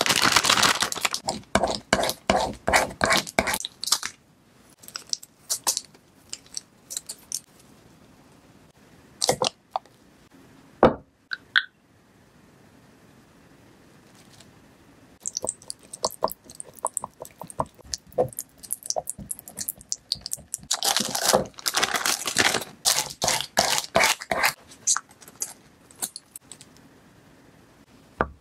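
A plastic piping bag crinkling as it is handled, then a few light clicks, then a plastic spoon scraping and pressing strawberry jam through a fine metal mesh strainer in many quick strokes.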